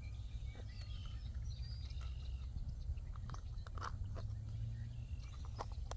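Outdoor ambience: a few short bird chirps over a steady low rumble, with scattered small clicks and taps.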